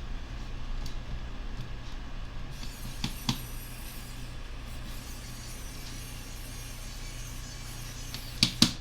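Light clicks and taps of hands working on a laptop's casing and parts over a steady low hum, with two small clicks about three seconds in and two sharper, louder clicks near the end.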